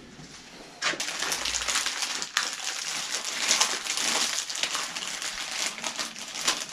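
Plastic packaging crinkling and crackling as it is handled and opened, starting about a second in.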